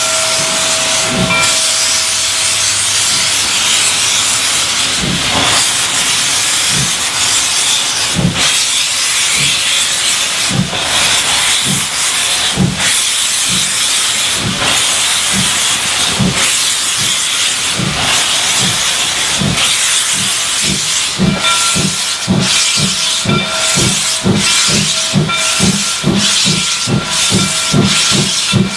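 Baldwin-built logging steam locomotive hissing steam and chuffing as it starts off. Its exhaust beats come slowly at first and quicken steadily, to about two a second near the end, as it picks up speed.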